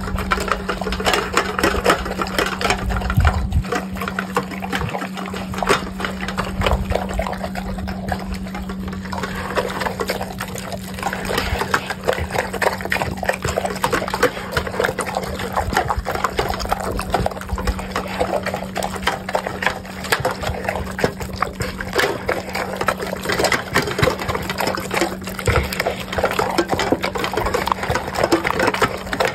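Two Cane Corsos eating a wet mix of fresh dog food and kefir from stainless steel bowls: continuous wet lapping, slurping and chewing, with many small clicks.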